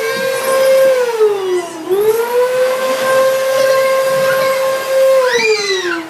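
Vacuum cleaner motor running with a steady high whine. Its pitch sags about a second in and climbs back, then winds down near the end. A brief higher rising-and-falling sound comes in as it winds down.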